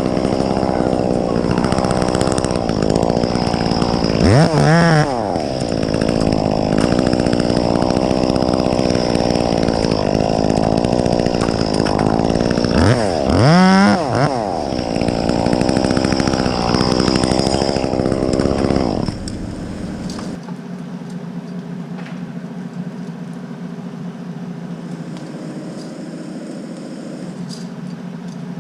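Chainsaw running steadily, revved up and back down briefly twice, then stopping about two-thirds of the way through, leaving a quieter steady engine hum.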